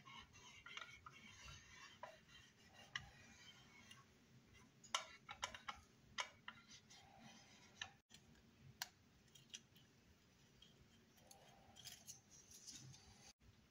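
Faint handling sounds of gloved hands and small tools on a plastic model car body: soft rubbing as metal foil is burnished onto the window trim, with scattered sharp clicks and ticks, a cluster of louder ones about five to six seconds in.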